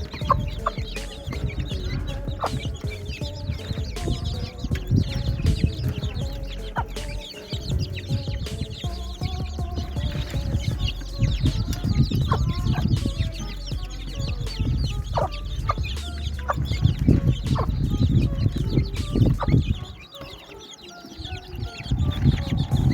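Chickens clucking and baby chicks cheeping in short chirps over a low rumble, with a brief lull near the end.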